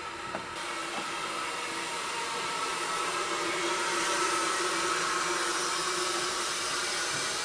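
Steady hiss of steam from Beyer-Garratt No. 143, a narrow-gauge articulated steam locomotive standing still. The hiss brightens suddenly about half a second in and then swells a little.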